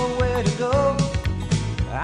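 Country music with no words: a steady bass rhythm under a held melody line.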